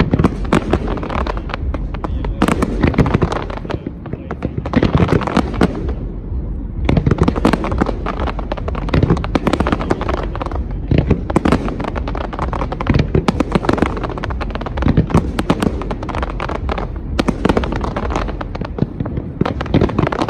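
Competition fireworks display: a dense, continuous barrage of shell bursts and crackling, with brief lulls about four and six seconds in before it picks up again.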